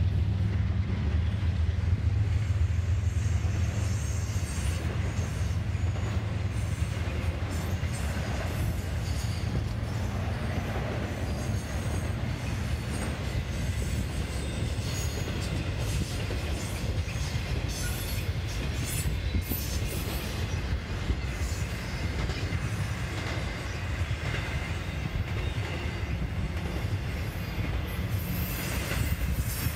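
Norfolk Southern double-stack intermodal freight cars rolling past on the rails: a steady low rumble with scattered sharp clicks.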